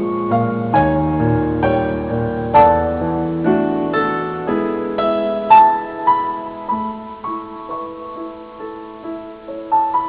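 Slow, gentle solo piano music playing a melody over sustained chords, with soft bass notes in the first few seconds.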